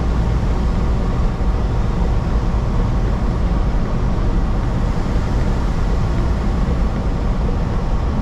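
Steady low rumble inside a semi-truck's cab at highway speed: engine and road noise.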